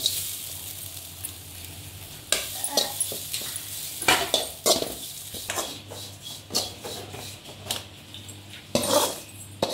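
Grated coconut poured into a dry aluminium kadai, then a steel spoon scraping and stirring it around the pan in quick, irregular strokes as it dry-roasts. Near the end the spoon scrapes it out of the lifted pan.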